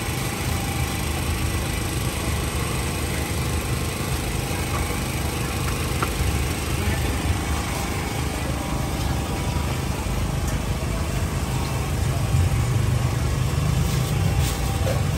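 Steady, unbroken drone of an engine running, slightly louder near the end, under faint background voices.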